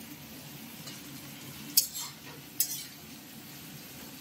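Metal spatula stirring vegetables frying in oil in a kadai, with two sharp clanks against the pan a little under a second apart, over a faint steady sizzle.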